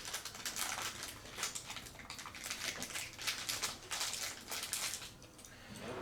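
Plastic packaging crinkling and rustling in short, irregular bursts as small toys are pulled out of it.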